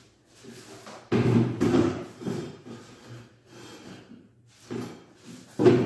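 Plastic chair with metal legs being moved and set down on a tiled floor, the legs scraping and knocking, with a loud clatter about a second in and another near the end.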